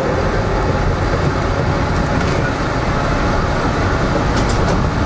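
Subway train running along the track, a steady, loud rumble of wheels and motors heard from inside the car, with a few faint high clicks about halfway through and near the end.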